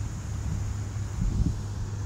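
Wind buffeting the microphone: a steady low rumble with light fluttering.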